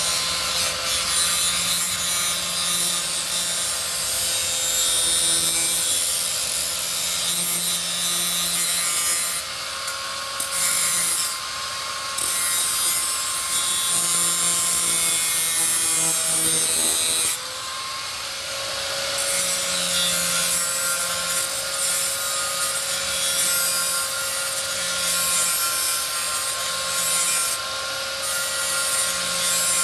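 Corded angle grinder grinding down the heads of steel bolts to round them off, a steady motor whine under a harsh hiss of abrasive on metal. A little past halfway the whine sags and the noise drops for a moment, then the grinding picks up again.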